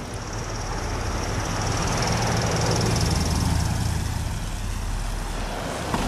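A pickup pilot truck driving past close by: engine hum and tyre noise swell to a peak about halfway through, then fade as it moves off, with a second vehicle coming past near the end.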